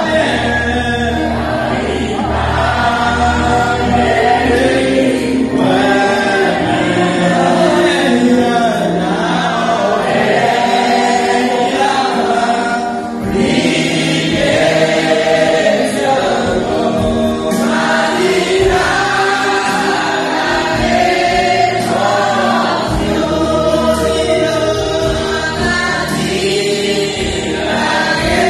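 Church congregation singing a gospel hymn together, men's and women's voices.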